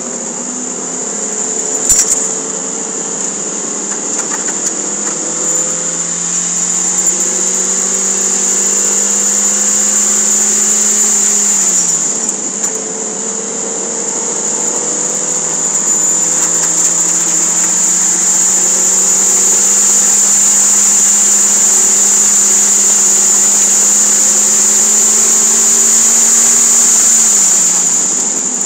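Toyota MR2 Spyder's 1.8-litre four-cylinder engine accelerating on track, heard from inside the cabin. Its pitch climbs slowly, drops with an upshift about 12 seconds in, climbs again, and falls off near the end. A steady high-pitched whine sits over it throughout.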